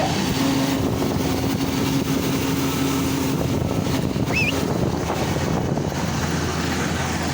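A vehicle engine running steadily, with wind buffeting the microphone. A steady higher hum is heard for the first three seconds.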